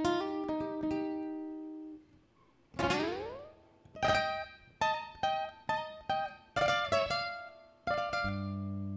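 Nylon-string acoustic guitar played solo: single plucked notes and chords that ring out, with an upward slide about three seconds in. Near the end an electric bass comes in with a held low note.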